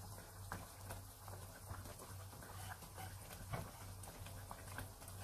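Coconut-milk and brown-sugar syrup simmering in a frying pan around glutinous rice, with faint, irregular small pops and ticks. A wooden spatula turns the sticky rice near the start, all over a steady low hum.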